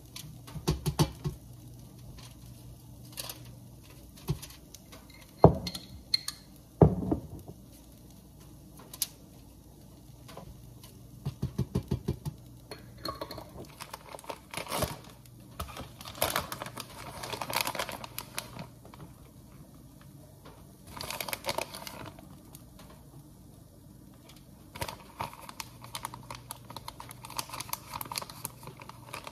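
A metal spoon scraping tomato sauce across a flour tortilla in quick strokes, with two sharp knocks early on. From about halfway through, a plastic bag of shredded cheese crinkles as it is handled and opened, and near the end the shredded cheese patters onto the sauce.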